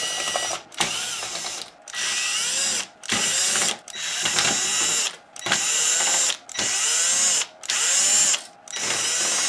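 Cordless power screwdriver backing out chassis screws in short runs of about a second each, about nine in all, the motor's pitch rising and falling within each run.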